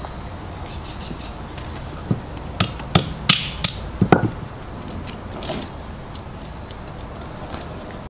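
Hammer cracking almond shells on a brick: a quick run of about six sharp knocks between two and four seconds in.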